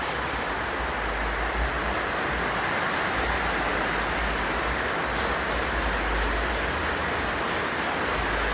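A steady, even rushing noise with a low rumble coming and going underneath.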